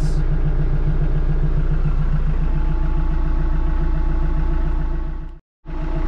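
TYM T474 HST tractor's diesel engine idling steadily, heard from inside the closed cab. The sound drops out for a moment near the end, then returns.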